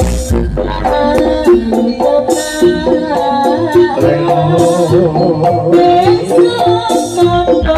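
Live Javanese jaranan dance music played loud through a PA system: a rhythm of sharp drum and percussion strokes under a held melody line, with a heavy bass beat.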